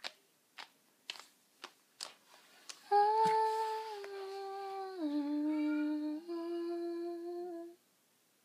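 A few light taps and clicks of dolls being handled. Then about three seconds in, a person hums four long, slow notes that step down in pitch and then rise a little on the last one.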